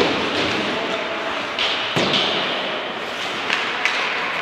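Ice hockey play in a rink: several sharp knocks of sticks, puck and boards, with a hard one about two seconds in, over a steady hiss.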